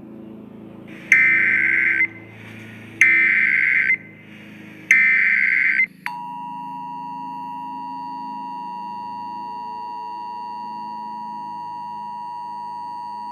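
Three loud bursts of Emergency Alert System SAME header data tones, each about a second long with short gaps between them. About six seconds in, the steady two-tone EAS attention signal starts, over faint low background music.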